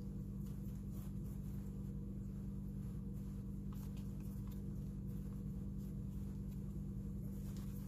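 Faint soft clicks and rustles of hands pinching and rolling a ball of steamed-bun dough, over a steady low hum.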